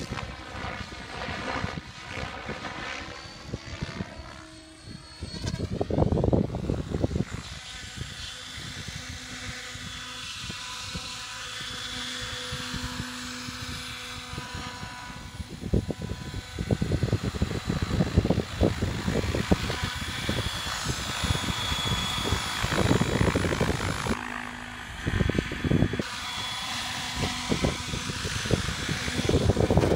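Compass Chronos radio-controlled helicopter's rotor and motor whining. The pitch sweeps up and down over the first few seconds as it comes down, then holds steadier while the rotor keeps turning.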